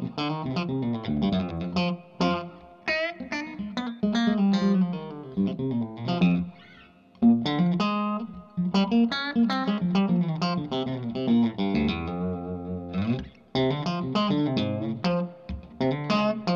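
Reverend Eastsider electric guitar played through a Sound City SC20 tube amp with 6V6 power valves and a delay pedal, picking quick single-note lead lines. The notes break off briefly about halfway through, and there is a slide in pitch about three-quarters of the way in.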